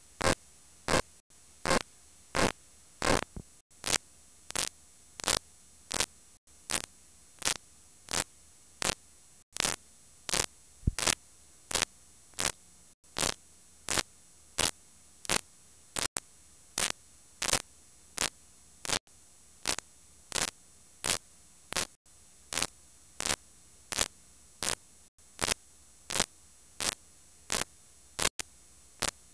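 Blank VHS tape playing after the recording ends: steady static hiss and hum, with a sharp crackle about three times every two seconds.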